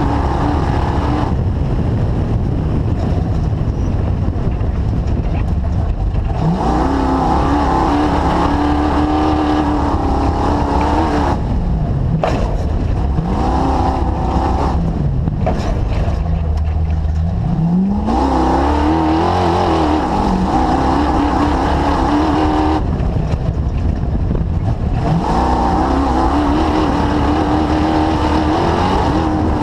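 The DirtKinetics Explorer's engine under way. It climbs in pitch three times as the throttle is opened and eases back between, with a steady rumble throughout.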